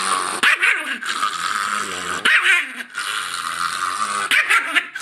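Chihuahua growling and snarling without a break, with short louder barks about half a second in, a little after two seconds and near the end. It is a warning growl at a hand reaching toward the woman it is guarding.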